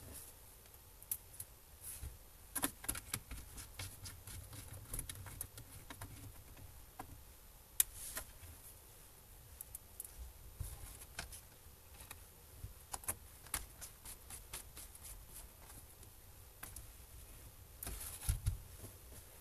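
Scattered small clicks and taps of a screwdriver and tiny screws against a laptop's plastic and metal chassis while it is being unscrewed, with one sharper click about eight seconds in.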